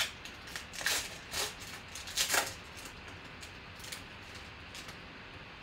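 Shiny foil wrapper of a 2011 Panini Gridiron Gear football card pack being torn open and crinkled by hand: four short crackling tears in the first half, then only a few faint rustles as the cards come out.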